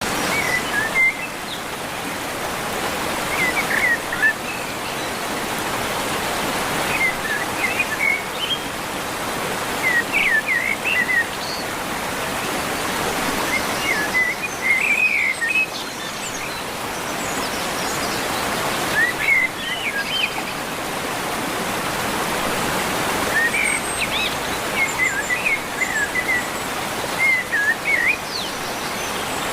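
Steady rush of falling water, with short bursts of bird chirps coming back every few seconds over it.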